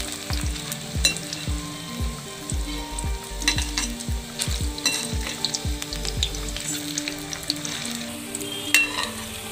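Lauki kofta balls deep-frying in hot oil in a metal kadhai on medium flame, sizzling steadily, while a metal ladle gently stirs and turns them, its frequent clicks and scrapes against the pan sounding through the sizzle.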